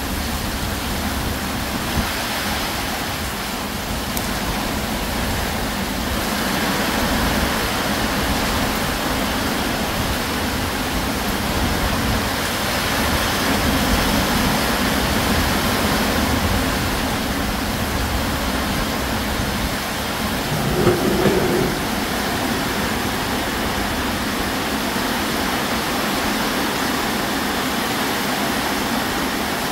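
Heavy rain pouring steadily on a corrugated metal roof and the ground around it in a strong storm, a loud, even rush that swells a little now and then. About two-thirds of the way through, a brief louder sound with a distinct pitch rises above it.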